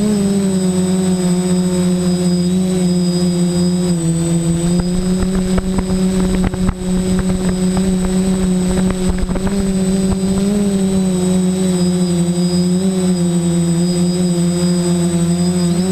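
Electric motors and propellers of a DJI quadcopter in flight, picked up by the GoPro carried on it: a steady buzzing hum with a thin high whine above it. The hum's pitch dips slightly about four seconds in and comes back up later as the throttle changes. Wind buffets the microphone in crackly gusts through the middle.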